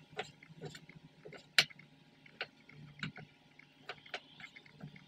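Kitchen knife cutting raw chicken on a wooden chopping board: irregular knocks of the blade on the board, with a sharper knock about one and a half seconds in. A faint steady low hum underneath.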